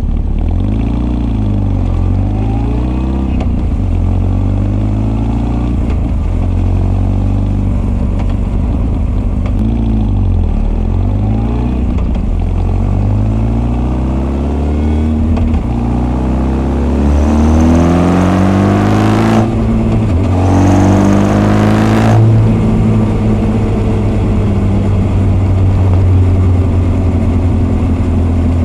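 Honda CB1300 SF inline-four with Keihin FCR41 carburettors and a Wyvern full exhaust, pottering at low revs with the throttle opened and closed. About halfway it accelerates hard, the pitch rising through two quick upshifts, then settles into a steady cruise.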